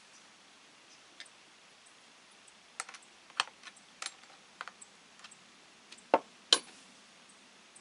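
Irregular series of light clicks and taps of hard objects being handled, with two louder knocks near the end.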